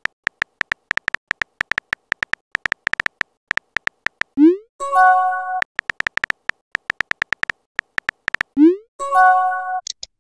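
Phone-keyboard tap sounds from a texting app: rapid short clicks as a message is typed. Twice, a rising swoop and a short synthesized chime sound as the message is sent, first about four seconds in and again near the end.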